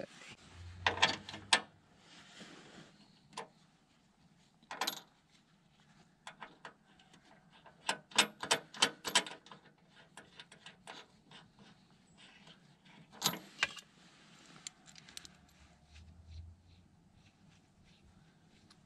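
Sharp metallic clicks and clinks of hand tools and metal parts being handled while a new bearing is fitted to the conveyor's drum shaft, with a quick run of clinks about eight to nine seconds in.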